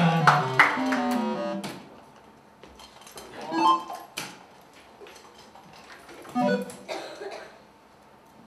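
Electronic soft-tip dart machine playing its 'Low Ton' award jingle for a 100-point round: a run of electronic notes stepping down in pitch, ending about two seconds in. A few sharp clicks come through it, and short electronic sounds follow later.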